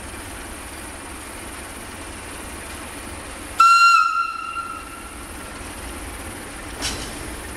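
Whistle of an Electroputere LDE 2100 (CFR class 60) diesel locomotive: one short, high-pitched blast about three and a half seconds in, dying away over a second or so. Under it, the low rumble of the freight train runs steadily.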